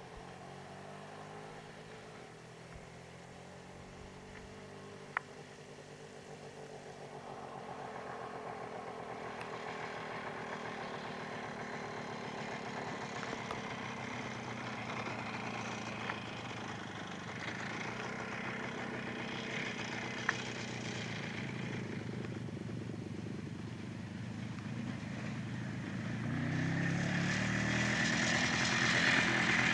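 Motorcycle engine running as it rides along a dirt track, its pitch rising and falling with throttle and gear changes. It grows steadily louder and is loudest near the end as the bike passes close, with a few small clicks along the way.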